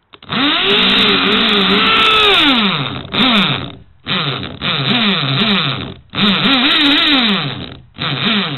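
Power drill running in five bursts, its motor speeding up and slowing as the trigger is squeezed and eased, with the bit grinding into an old mobile phone.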